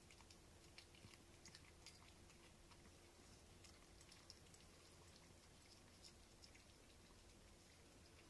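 Faint, irregular wet clicks of cats licking churu paste from a spoon.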